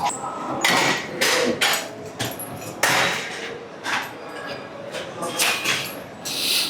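Gym weights clanking: a dozen or so sharp, irregular metal knocks and clinks in quick succession, some ringing briefly.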